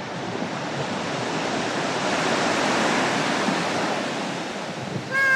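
Small sea waves breaking and washing up a sandy beach: a steady surf noise that swells to its loudest about halfway through and then eases.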